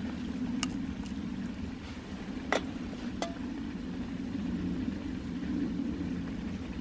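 A steady low rumble, with a few sharp clicks and cracks in the first half as hands work at a plate of food. The loudest click comes about two and a half seconds in, and a later one rings briefly, like glass touching a plate.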